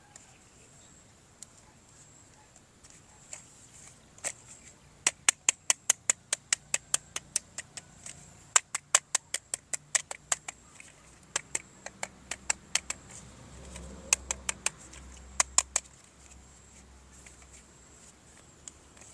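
Sharp plastic clicks from a toy being worked by hand, about three a second in several runs with short gaps, starting about four seconds in and stopping near sixteen seconds.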